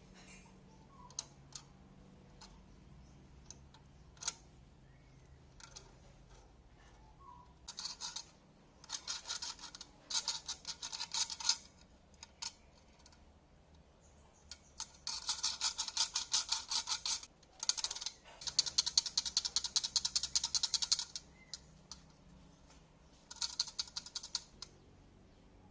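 Rapid clicking in several bursts of one to three seconds each, over a faint steady low hum.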